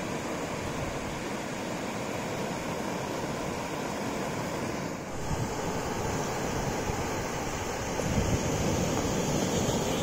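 Ocean surf breaking and washing up a sandy beach: a steady rushing noise that grows louder in the last couple of seconds.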